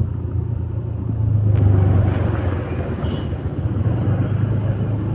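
Vehicle engine and road noise while travelling, a steady low hum that swells louder about one and a half seconds in, with a brief click near that point.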